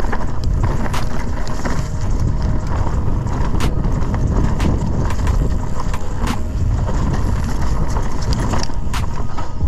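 Scott Ransom 920 full-suspension mountain bike rolling fast downhill on a dirt trail: a steady rumble of knobby tyres and wind on the helmet-mounted microphone, with frequent sharp knocks and rattles from the bike over roots and bumps.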